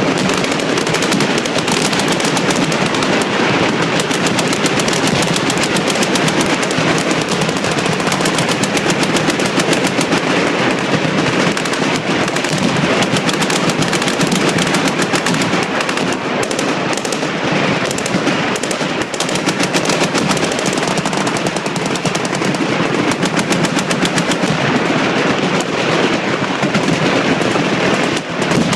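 Many machine guns firing continuously at once on a firing line, a dense unbroken rattle of overlapping automatic fire with no pause.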